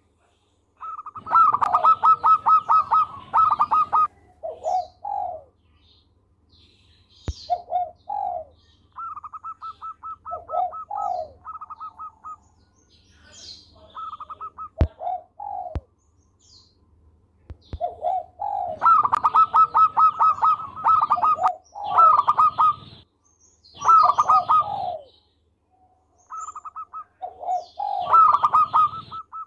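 Zebra dove (perkutut) singing its cooing song. Each phrase is a quick run of stuttering coos followed by a couple of lower notes, and the phrases repeat with pauses of a few seconds between them.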